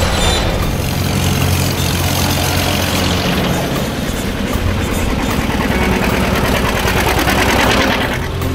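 Engines of old farm tractors running as a line of tractors drives past, a Farmall passing close at the start.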